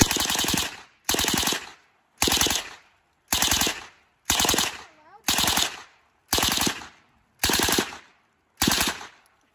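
Suppressed M11/9 submachine gun with a Lage upper and Osprey 45 suppressor firing in 9mm on full auto: nine short bursts, each about half a second long, starting about a second apart. The gun feeds and cycles without a stoppage.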